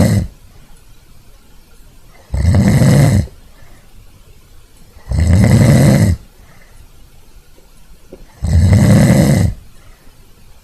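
A person snoring loudly, with three snores about a second long, roughly every three seconds, and quiet breathing gaps between them. The last of an earlier snore trails off right at the start. The uploader presents this loud snoring as a symptom of obstructive sleep apnea.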